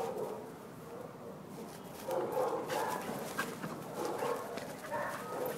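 Young pit bull terriers barking in rough play, in several short bursts.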